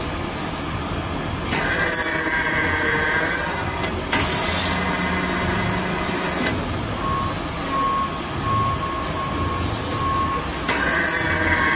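CNC vertical machining center milling a metal plate with a long end mill: a steady machine drone, with two loud stretches of high ringing cutting noise, about two seconds in and again near the end. A beep repeats about twice a second in the middle.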